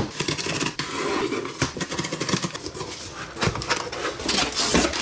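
Hands handling a paper mailing envelope: steady rustling and crinkling of the paper, with a few sharper crackles scattered through.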